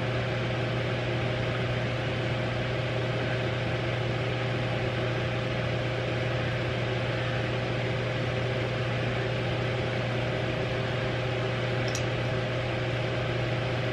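Steady machine-like background hum over an even hiss: a strong low drone with a fainter steady higher tone above it, unchanging.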